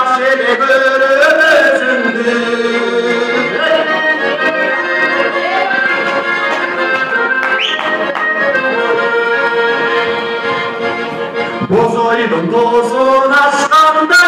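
Accordion playing a tune, its reedy chords and melody steady throughout, with a short rising whistle about halfway through.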